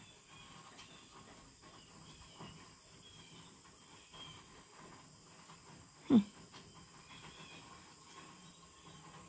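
Faint rural ambience: a steady high drone of insects with a few soft bird chirps. One brief, louder sound stands out about six seconds in.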